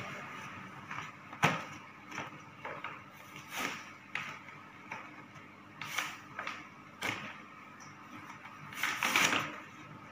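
Packaging of a new toy set being handled and opened: rustling and crackling of cardboard and plastic wrapping, with a sharp knock about one and a half seconds in and a longer, louder crinkle near the end.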